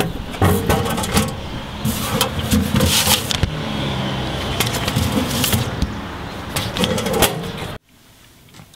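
Wind buffeting the microphone over a low outdoor rumble, with clicks and rustles as a mailbox is opened and an envelope is pulled out; the sound cuts off suddenly near the end to a quiet room.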